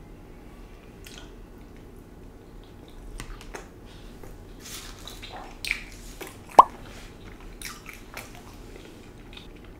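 Quiet chewing of a mouthful of macaroni and cheese with fried chicken, with scattered mouth clicks and one sharper smack about two-thirds of the way through.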